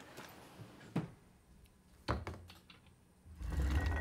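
Handling sounds on a workbench: a sharp click about a second in, a thump about two seconds in, and a longer, louder low knock and rumble near the end as a stereo microscope on its arm is pulled into place.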